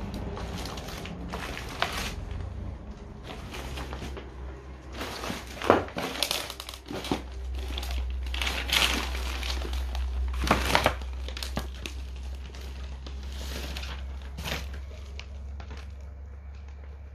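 Piles of loose paper and old documents rustling and crinkling in irregular bursts, loudest around the middle, over a steady low rumble.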